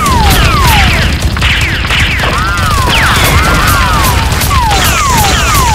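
Edited battle soundtrack of added gunfire sound effects: repeated falling laser-like 'pew' sweeps about twice a second over rapid crackling shots and a steady low rumble.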